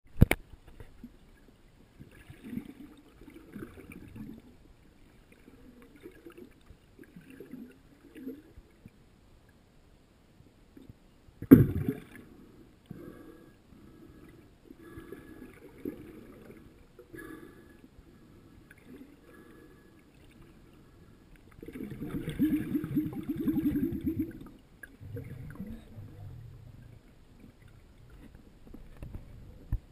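Muffled underwater sound picked up through a GoPro Hero 2's waterproof housing: soft rumbles and knocks of water movement. There is a sharp knock at the very start, another louder knock about a third of the way in, and a louder stretch of rumbling lasting a couple of seconds after the two-thirds mark.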